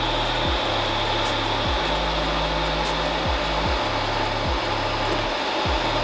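TIG welding arc hissing steadily as a small steel tab is welded to steel tubing with hand-fed filler rod. Background music with a low bass line plays underneath.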